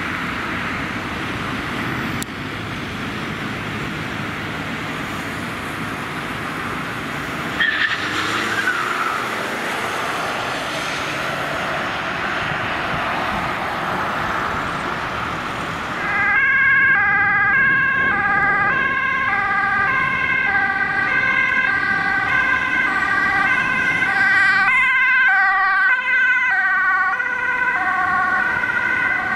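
Road traffic noise, then about halfway a Dutch ambulance's two-tone siren comes in suddenly, switching between a high and a low note about once a second over the traffic.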